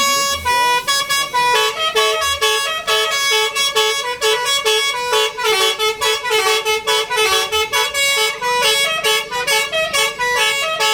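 A bus's basuri horn, the multi-tone 'telolet' electric horn, playing a quick tune of short notes that step up and down in pitch without a break.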